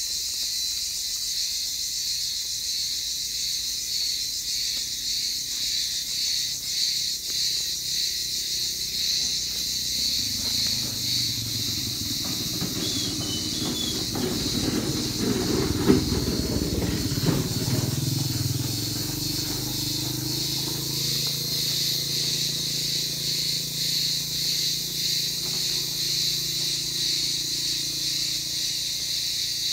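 A chorus of many cicadas singing at once: a steady, high, buzzing drone with a fast pulse. In the middle a low rumble swells for several seconds, with a sharp knock at its loudest.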